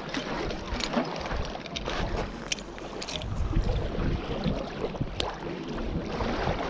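Small waves lapping on a gravel lakeshore, with wind rumbling on the microphone and scattered clicks from handling a fishing rod, bobber and spinning reel.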